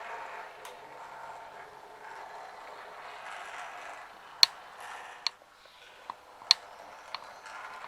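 Model train running on the layout: a steady light whirring, with sharp clicks at irregular intervals, most of them in the second half.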